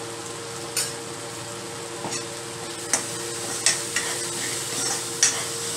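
Onion-tomato masala with spices sizzling as it fries in a kadai, stirred with a steel ladle that scrapes and clinks against the pan about five times.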